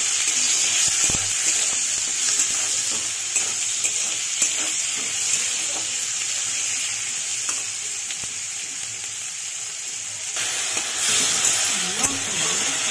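Cumin seeds, chopped tomato and salt sizzling in hot oil in a karahi as they are stirred: a steady frying hiss with occasional short clicks, a little louder near the end.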